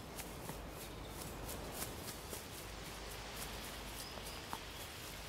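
Quiet outdoor ambience at a meadow's edge: a faint steady hiss with a few scattered small clicks, and no stag call.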